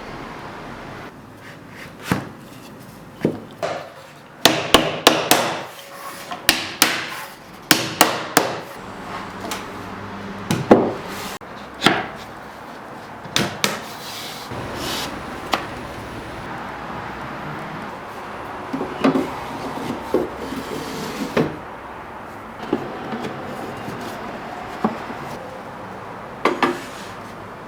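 Hard wooden knocks and clatter: a quick run of knocks and bumps, then single knocks every second or two.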